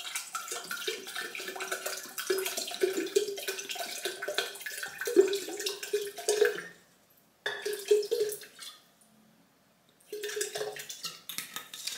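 Still water poured from a glass bottle into a measuring jug, 500 millilitres being measured out. The pouring breaks off about seven seconds in, runs again briefly, stops, and starts again about ten seconds in.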